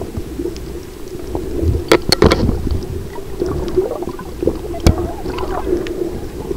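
Muffled underwater noise picked up by a camera held under the sea surface, with bubbling and gurgling water. Sharp clicks stand out, a cluster about two seconds in and a single one near five seconds.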